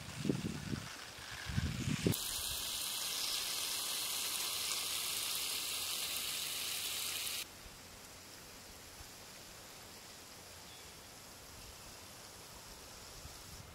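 Outdoor ambience: an even hiss that gets louder about two seconds in and cuts off suddenly at about seven seconds, leaving a quieter steady hiss, with a few low thumps at the start.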